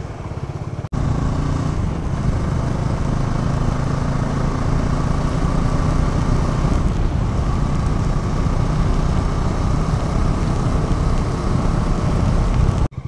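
Motorcycle engine running steadily under way, with wind and road noise on the rider's microphone. The sound drops out briefly about a second in.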